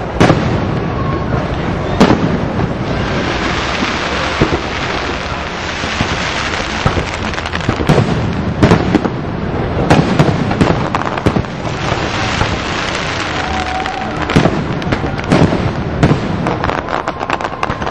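Aerial fireworks shell bursts going off one after another, a sharp boom every second or so with rumbling echoes and some crackle between them.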